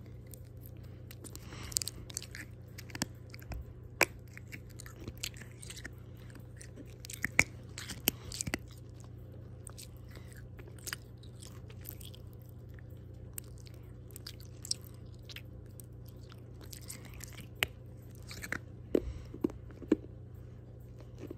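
Close-up chewing and crunching of candy in the mouth: irregular sharp clicks and crackles, over a steady low hum.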